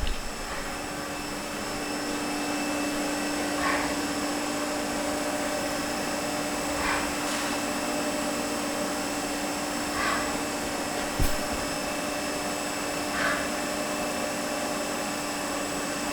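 2005 Haas Mini Mill CNC vertical mill running a program cycle: a steady machine hum and whine from its 40-taper spindle and drives, firming up about two seconds in. Short hissy bursts come about every three seconds, and a single sharp clack comes about eleven seconds in.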